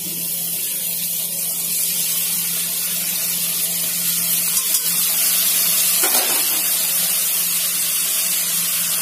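Ginger paste sizzling in hot mustard oil among frying potatoes in a karahi: a loud, steady hiss.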